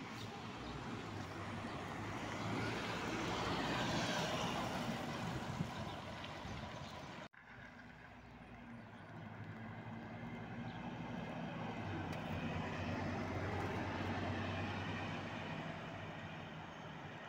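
Scania three-axle city bus engine and tyres as the bus drives past, swelling and then fading. After a sudden cut, another bus's engine hum builds and fades as a bus pulls away.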